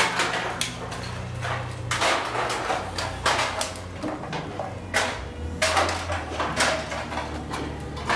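Irregular knocks and clatter over a low, steady hum.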